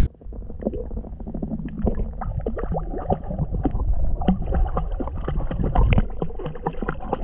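Muffled water sloshing and irregular splashing from a young puppy paddling in a swimming pool, heard through a waterproof camera housing at the water's surface, with a steady low rumble under it.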